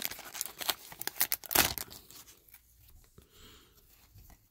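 Trading-card pack wrapper being torn open and crinkled, with a sharp loud rip about one and a half seconds in. After that come only faint rustles as the cards are handled.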